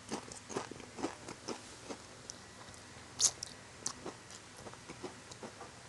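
Crunchy tortilla chips being chewed close to the microphone: irregular sharp crackles, about two or three a second, with a louder crunch about three seconds in.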